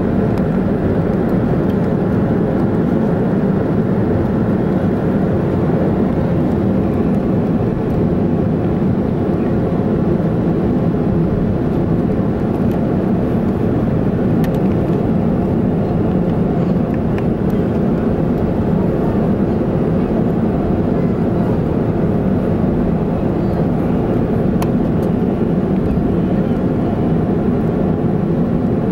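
Cabin noise of a Boeing 737-500 taxiing, heard from a seat over the wing: its CFM56-3 turbofan engines running at low thrust give a steady, deep hum with the rumble of the wheels.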